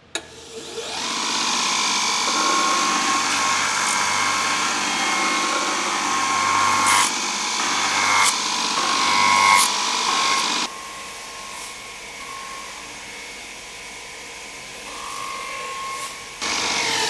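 Bench belt linisher sanding the plastic of a car airbox, flattening the plastic weld seam and swarf around a hole-sawn opening. A steady grinding with a whine starts about half a second in, and drops to a quieter run about ten seconds in.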